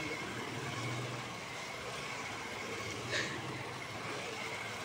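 Small electric RC monster truck driving on concrete: a faint, steady high motor whine over rolling tyre noise, with one brief sharp sound about three seconds in.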